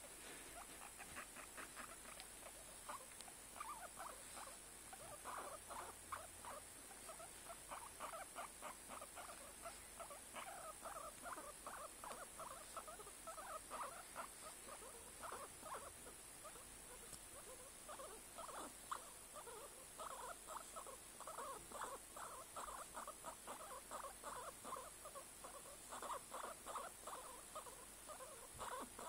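Guinea pig calling in runs of short, quick squeaks as it is stroked, faint, with brief pauses between runs.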